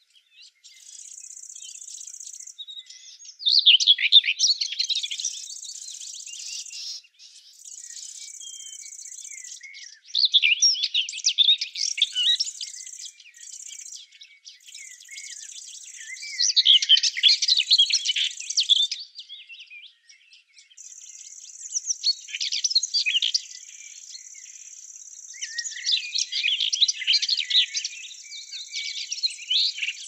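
Small songbirds chirping and twittering in repeated bursts of rapid, high song every few seconds, over a thin, very high steady buzz that switches on and off.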